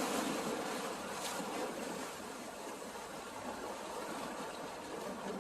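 Steady rushing noise of sea water and wind, with no clear engine tone or distinct splashes.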